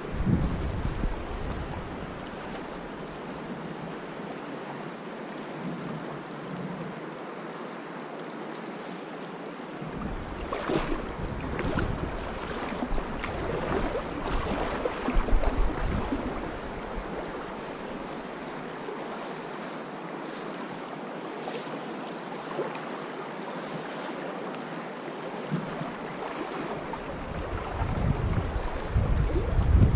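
Steady rush of fast river current flowing past a wading angler, with wind buffeting the microphone in gusts at the start, again about ten to seventeen seconds in, and near the end. A few short, sharp sounds stand out, the loudest about fifteen seconds in.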